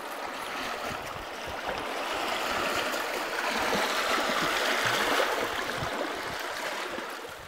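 Water running and splashing, a steady rush that starts suddenly, swells in the middle and fades out near the end.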